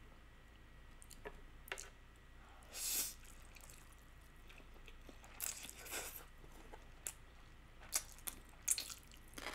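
Close-up eating sounds: spicy stir-fried instant noodles slurped about three seconds in and chewed wetly, then a few sharp, crisp bites into pickled radish near the end.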